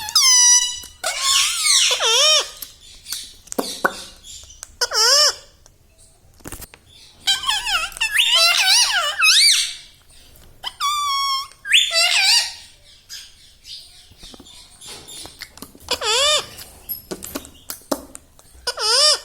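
Ring-necked parakeet calling: bursts of high squawks and whistles that glide up and down, each a second or two long, with short pauses between them.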